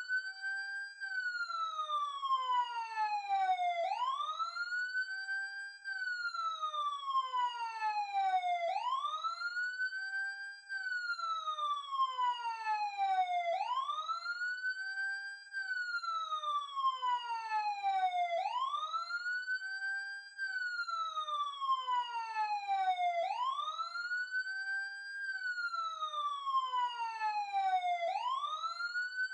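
Emergency siren wailing. The pitch sweeps up quickly in about a second, holds briefly at the top, then falls slowly over about three seconds, and the cycle repeats roughly every five seconds, about six times.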